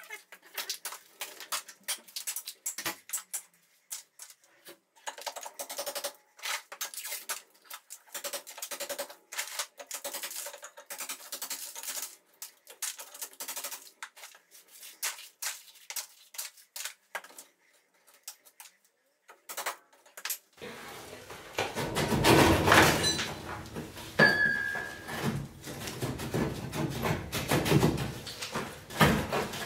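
Hand chisel scraping and chipping at mortar and render around a concrete fireplace lintel, as irregular scratchy clicks and small bits of debris. About twenty seconds in, a louder, lower grating takes over as the heavy lintel is worked loose and scraped against the brickwork.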